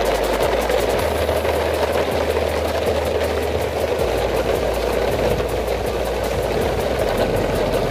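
A truck engine running steadily, an even drone with no change in pitch.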